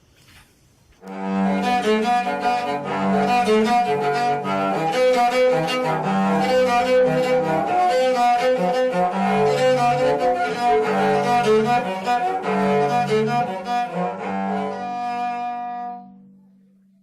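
Cello built from an oil can and scrap wood, bowed in a melodic passage that ends on a long held note fading out.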